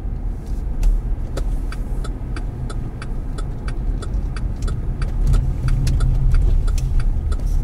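Cadillac CTS Sport Wagon driving slowly, heard from inside the cabin: a steady low engine and road rumble. A regular sharp ticking, about three ticks a second, runs over it from about a second in.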